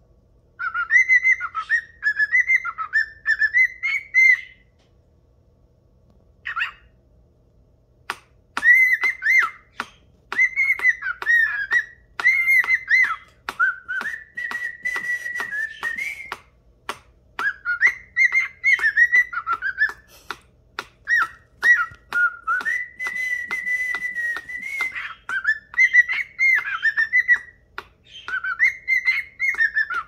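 Cockatiel whistling its song in warbling phrases, with a few long held notes and sharp clicks among them. After a short burst of song near the start it pauses for a few seconds, then sings almost without a break.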